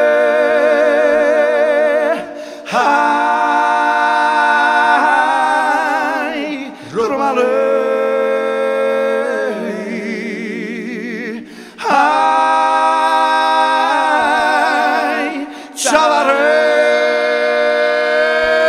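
Men's voices singing a Romani song unaccompanied, several voices at once in long held phrases with wide vibrato. The phrases break briefly for breath about every four to five seconds.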